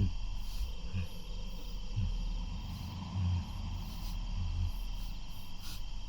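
Crickets chirring steadily as a background ambience, with several soft, low thuds spread through it.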